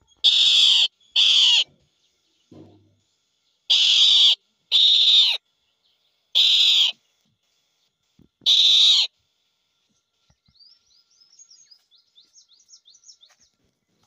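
Indian roller giving six harsh, rasping calls of about half a second each, the first two and the next two in quick pairs, the last two single, over the first nine seconds. Faint rapid high twittering of small birds follows near the end.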